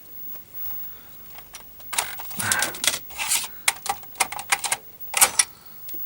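Irregular bursts of clacking keystrokes on the Amiga 500+ keyboard, starting about two seconds in, with a short rustling burst in between.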